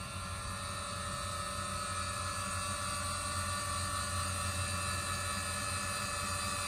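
Power electric bed lift of a custom 1956 Chevrolet pickup raising the bed cover: an electric motor running with a steady whine and low hum.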